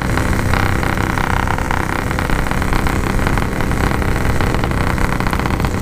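Yamaha RX-King's 135cc single-cylinder two-stroke engine running steadily at an easy cruise through an aftermarket PK 3 exhaust, heard from the moving motorcycle.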